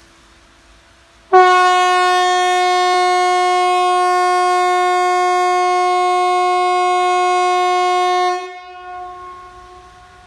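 Swedish outdoor public warning siren (Hesa Fredrik) sounding one loud, steady-pitched blast. It starts abruptly a little over a second in, holds for about seven seconds, then stops and echoes away. It is the 'Important public announcement' (VMA) signal of the quarterly test, made of seven-second blasts with fourteen-second pauses.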